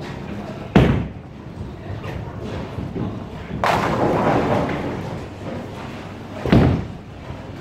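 A bowling ball lands on the wooden lane with a heavy thud about a second in, and pins crash a few seconds later. A second ball lands with another thud near the end.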